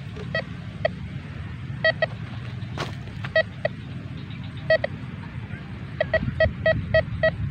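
Metal detector giving short, pitched beeps as its search coil sweeps over a freshly dug hole, signalling buried metal. A few beeps come scattered early on, then a quick run of about six in the last second and a half. A single sharp click sounds about three seconds in.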